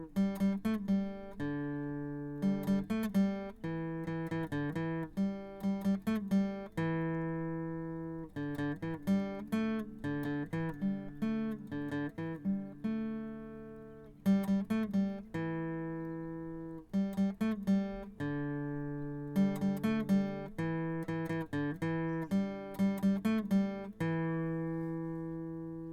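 Solo acoustic guitar music: plucked notes in quick short runs, broken every few seconds by a note or chord left to ring and fade.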